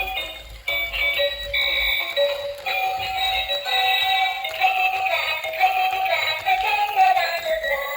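Music: a high-pitched synthesized melody with a voice-like synthetic lead.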